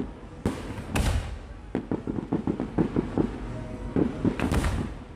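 Fireworks going off: two loud bangs about half a second apart, then a quick run of crackling pops, and another loud burst near the end.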